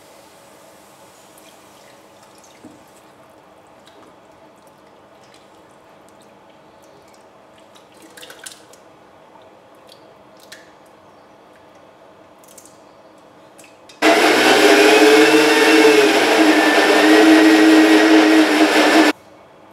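Countertop blender grinding the cooked mixture into a spice paste, running loud for about five seconds: it starts abruptly and cuts off suddenly, the motor's pitch wavering as the thick paste churns. Before it, only faint room tone with a few light clicks.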